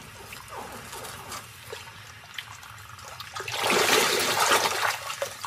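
Water splashing and sloshing for about a second and a half, starting about three and a half seconds in, after a quieter stretch.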